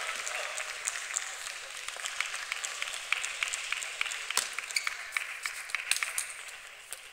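Table tennis ball clicking off the bats and the table in a serve and short rally, the sharpest strikes from about four seconds in. Underneath is a steady hiss dotted with many faint clicks.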